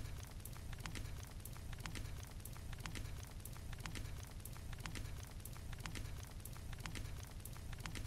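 Faint crackling fire, a sound-bed effect: scattered sharp pops and crackles, several a second, over a steady low rumble.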